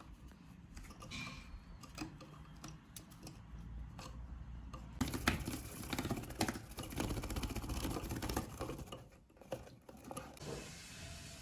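Budgerigar chick scrabbling about, claws scratching and clicking with rustling, busiest from about five to nine seconds in.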